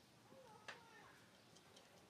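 Near silence, with a few faint squeaky sounds in the first second and one soft click about two-thirds of a second in.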